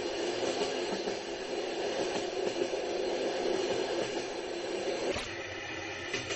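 Train running on the rails: a steady rumble with wheel clatter, and one sharp knock about five seconds in.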